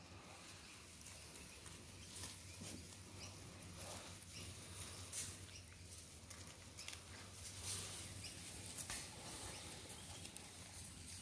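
Seven-week-old Doberman puppies play fighting on grass: faint scuffling with scattered sharp clicks, the loudest about five and eight seconds in.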